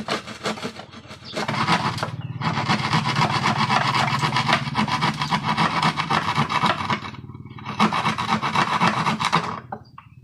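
A speaker box's port hole being cut and rasped wider from the inside: fast, continuous scraping strokes in a long loud run, a short pause about seven seconds in, then a second run that stops shortly before the end.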